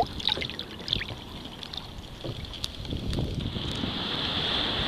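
Small splashes and water lapping as a lesser spotted dogfish is let go by hand over the side of a kayak. From about three and a half seconds in, a steady rushing hiss of wind and water takes over.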